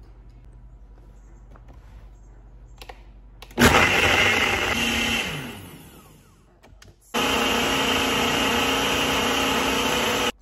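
Personal bullet-style blender blending blackberries into a smoothie in two runs. The first starts about three and a half seconds in and spins down after a couple of seconds. The second runs steadily for about three seconds and cuts off sharply.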